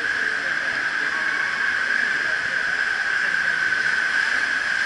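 Amusement-park ride vehicle travelling through a water-filled shed: a steady rushing hiss with a constant high hum.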